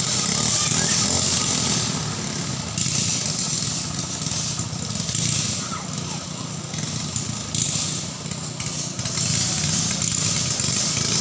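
Small 6.5 hp engines of ketinting longtail racing boats running hard at full throttle, a continuous buzzing engine noise that swells and dips in loudness.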